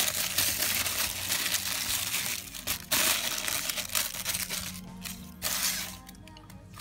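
Tissue paper crinkling and rustling as it is unwrapped by hand from a small figure. The crinkling is dense for about five seconds, comes back in one short rustle, then dies down near the end.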